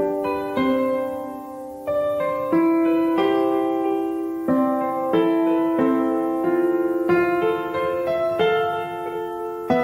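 Background music: a piano playing a gentle melody with chords, notes struck every half second or so.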